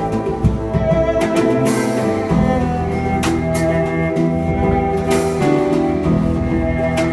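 Live instrumental ensemble of cello, hang, guitar and drum kit playing, with low held notes and cymbal strokes about every two seconds.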